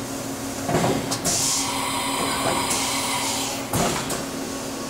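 Hurco BMC-20 CNC vertical machining center doing an automatic tool change: a clunk about a second in, then a hiss for about a second and a half, then another clunk near the end, over the machine's steady hum.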